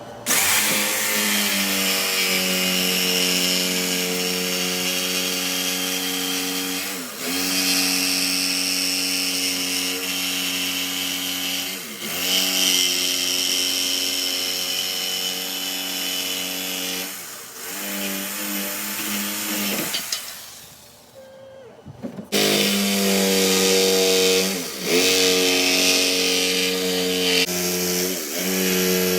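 Electric power saw running and cutting wood, its motor dipping in speed briefly several times as it bites. It stops about two-thirds of the way in and starts again about two seconds later.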